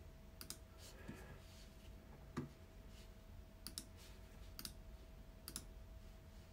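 Several faint computer mouse clicks, scattered and some in quick pairs, over a faint steady hum.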